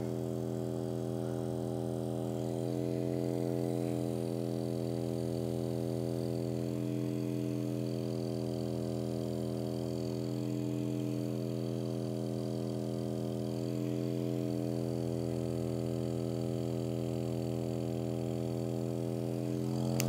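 Handheld percussion massage gun running steadily against the muscle, its motor humming with a pitch that shifts slightly a few times. It cuts off at the end.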